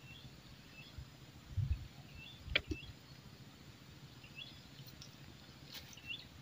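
Short, high two-note chirps from a small creature repeat every second or so. There are a couple of dull low thumps about one and a half seconds in, then a single sharp click, the loudest sound, about two and a half seconds in.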